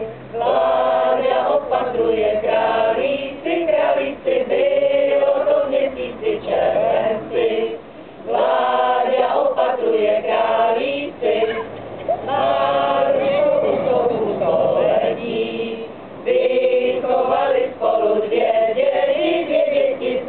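A small group of mostly women's voices, with a man's among them, singing a song together in phrases with short breaks between them.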